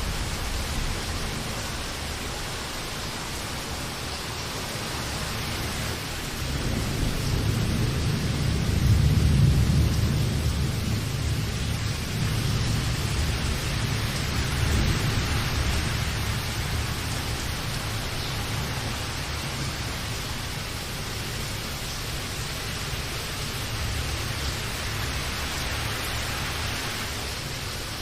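Steady rain hissing, with a low rumble of thunder that swells up about a quarter of the way in and slowly dies away, followed by a smaller second rumble.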